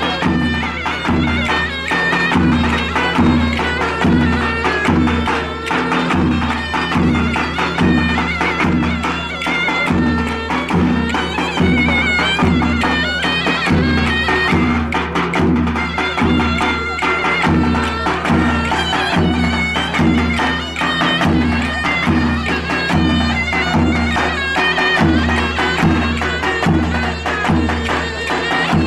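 Turkish folk dance music played live on a clarinet and a davul bass drum: a reedy, ornamented clarinet melody over a steady, booming drum beat.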